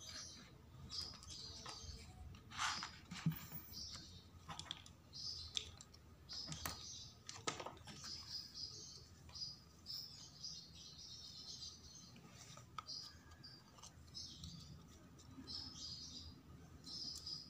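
Paper model parts and a glue bottle handled on a cutting mat: scattered light clicks and taps, the loudest about three seconds in. Repeated high chirping goes on in the background.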